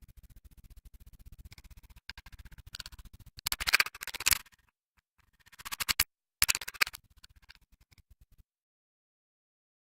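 A run of rapid clicking or ticking, which swells into three louder bursts in the middle and then cuts off abruptly to dead silence for the last second or so.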